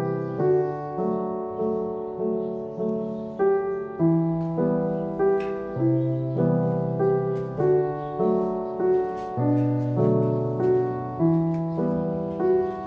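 Background piano music: a gentle solo piano piece with evenly paced notes.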